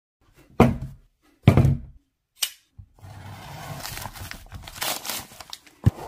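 Two heavy thunks and a lighter knock as a packaged knife box is put down and handled on a mat, followed by steady rustling and scraping of packaging as the cardboard box is unwrapped and slid open, with a sharp click near the end.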